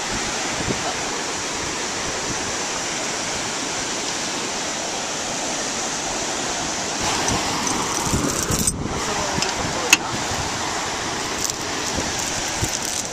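Steady rush of ocean surf and wind on the microphone. In the second half, metallic clinks and rattles as a steel tow chain is handled, with one sharp clink about ten seconds in.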